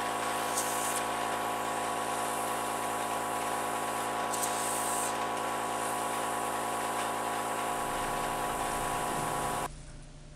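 Airbrush compressor running with a steady hum and hiss, with two short louder bursts of airbrush spray, one soon after the start and one about halfway through. It cuts off suddenly near the end.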